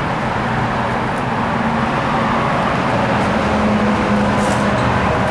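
Steady motor-vehicle or road-traffic noise with a low engine hum, slowly growing louder.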